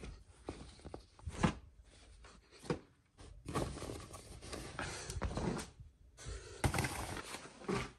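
Clothes and a fabric closet storage bin being handled: rustling cloth with a few short knocks scattered through.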